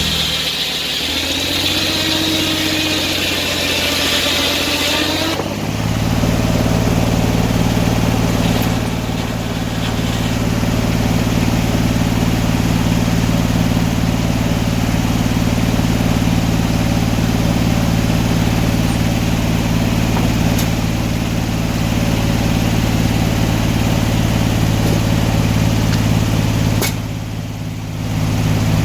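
Sawmill engine running under a homemade governor. For about the first five seconds its pitch wavers over a high hiss, then it settles to a steady, even run. Near the end it drops in level for about a second before picking back up.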